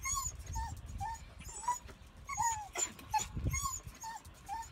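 A dog whining: a string of short, high whimpers, each a brief rising-and-falling note, repeated irregularly every few tenths of a second.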